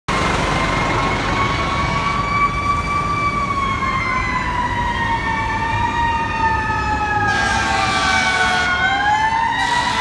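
Two sirens of a fire department heavy rescue truck sounding together as slow wails that rise and fall; the second comes in a few seconds in. Near the end there are two loud blasts of the air horn.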